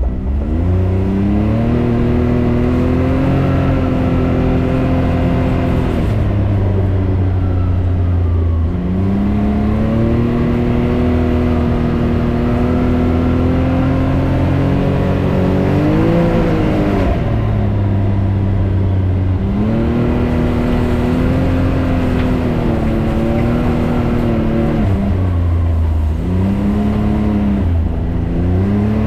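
Can-Am Maverick X3 Turbo RR's turbocharged three-cylinder engine pulling under throttle while driven, its revs climbing and then holding steady before dropping back off, about three times over.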